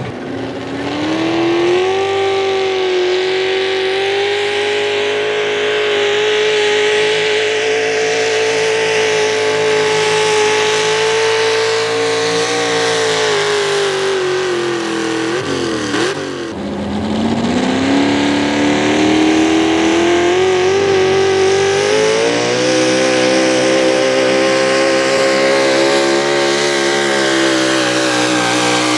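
Pro Stock 4WD pulling trucks' engines running at high revs under load as they drag a weight-transfer sled, the pitch climbing and then holding steady. About halfway through the note sags and drops away, then a second truck's engine rises and holds a steady pull.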